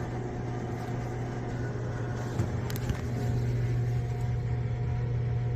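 Gas furnace running with a steady low motor hum. There is a click about two and a half seconds in, and the hum grows a little louder soon after.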